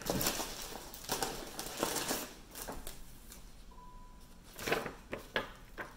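Gift packaging crinkling and rustling as it is handled, busiest in the first couple of seconds, then quieter with a couple of separate rustles about five seconds in.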